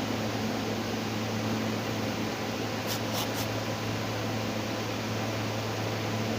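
A steady motor-like hum over an even hiss, with three faint, quick clicks about three seconds in.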